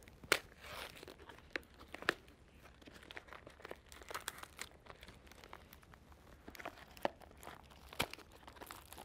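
Shrink-wrapped sterile implant box being unwrapped by hand: plastic wrap crinkling and tearing in irregular crackles, with a few sharper snaps scattered through.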